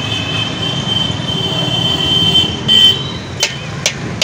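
A high metallic squeal that peaks near the end, over a steady low rumble, followed by a few sharp metal clinks: a long-handled wire strainer scraping and knocking against an iron kadhai of hot oil at a puri fryer.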